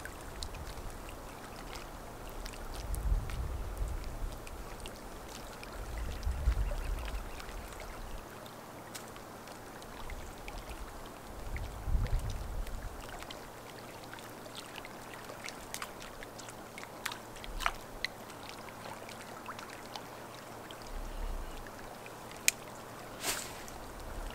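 Wind buffeting the microphone in several gusts over a steady background hiss, with a few faint clicks and taps.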